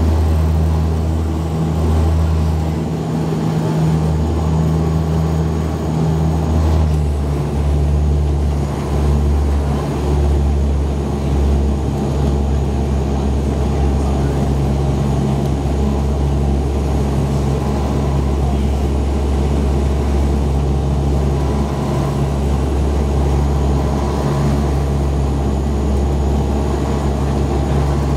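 Cabin drone of a de Havilland Canada Dash 8-100's twin turboprops and propellers during the climb after takeoff. It has a deep hum that pulses in a slow beat for the first ten seconds or so, then evens out into a steady drone.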